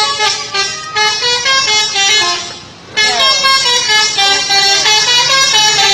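Bus 'telolet' musical horn playing a multi-note tune, in two long phrases with a short break a little before three seconds in.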